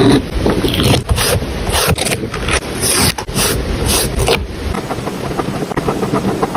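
Close-up journaling sounds of paper and stickers being handled: scratchy rubbing and peeling strokes in irregular bursts, busier in the first few seconds.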